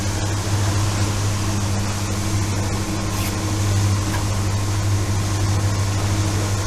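Fishing boat's engine running steadily at trolling speed, a constant low drone with a hiss of wind and water over it.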